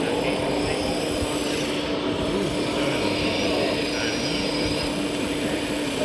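Hydraulic pump of a radio-controlled Liebherr R 960 SME model excavator running with a steady whine as the boom and bucket move.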